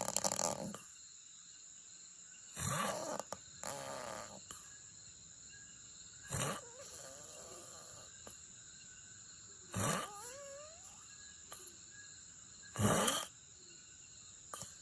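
A sleeping person snoring, with short snores about every three seconds.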